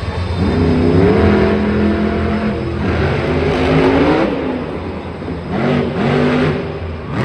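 Monster truck's supercharged V8 revving hard under full throttle, its pitch climbing and falling three times as the driver gets on and off the gas across the dirt and over a jump.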